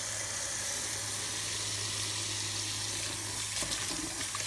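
Kitchen tap running steadily onto fresh mint and lemongrass in a bowl of water, rinsing off garden dirt. Near the end a hand swishes through the leaves in the water, adding uneven splashing.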